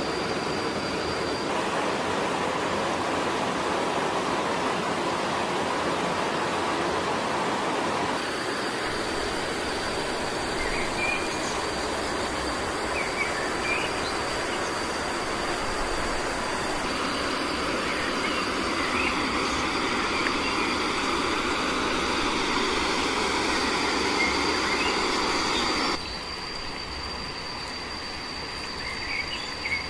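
Steady rush of water in a rocky stream, with a thin high insect drone and a few short bird chirps over it. The sound changes abruptly at about eight seconds, and near the end drops to a quieter wash of insects and birds.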